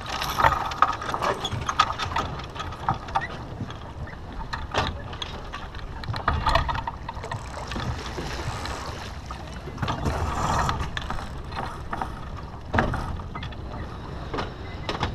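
Steady rush of wind and water aboard a T-10 racing sailboat under spinnaker, with repeated clicks, knocks and clatter from the rigging and deck gear as the crew gybe the spinnaker.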